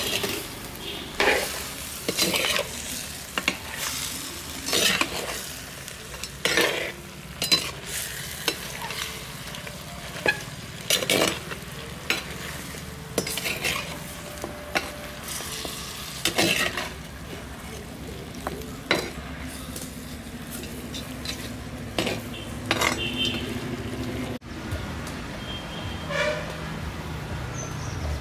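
A perforated metal skimmer scraping and knocking irregularly against an earthenware pot as mutton pieces are stirred and fried with spice powders. A steady sizzle of the frying meat runs underneath.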